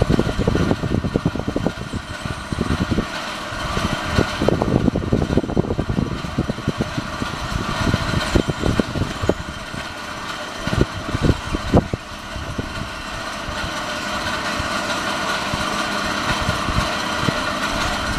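Wind buffeting the microphone in irregular low rumbling thumps, heavier in stretches, over a steady hum.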